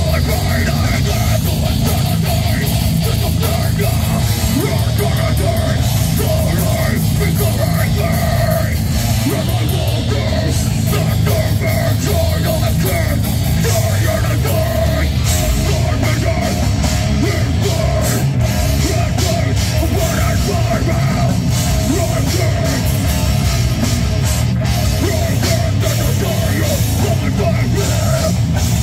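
Live heavy metal band playing loud: electric guitars and a drum kit, with a vocalist singing into the microphone.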